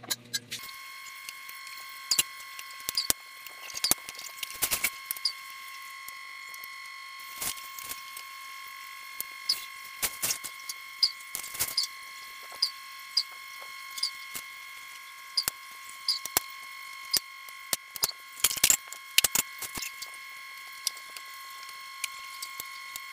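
Plastic parts of a baby high chair clicking and knocking together as the tubular legs and backrest are handled and fitted. The clicks come irregularly, over a steady high-pitched whine.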